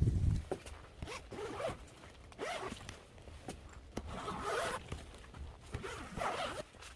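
A zipper pulled open or shut in about four separate strokes, a second or two apart.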